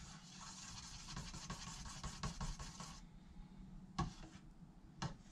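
Wooden stir stick scraping around the inside of a metal paint can, faint and steady for about three seconds as automotive paint is mixed, then a single knock about four seconds in.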